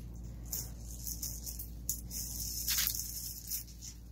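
Plastic packaging crinkling and rustling as it is cut open, in several short bursts, the longest about three quarters of the way through.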